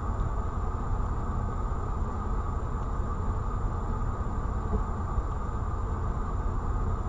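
A stopped car's engine idling, heard from inside the cabin as a steady low rumble, with a faint steady high whine over it.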